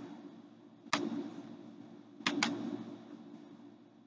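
Computer mouse clicking: one click about a second in, then a quick double click a little past two seconds, over a faint steady hum.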